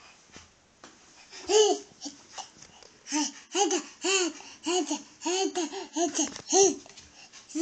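A toddler's voice in a run of short laughing, babbling calls, each rising and falling in pitch, about two a second, starting about a second and a half in.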